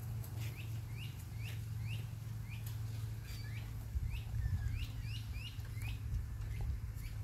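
A songbird chirping over and over, short hooked notes about two a second, over a steady low hum.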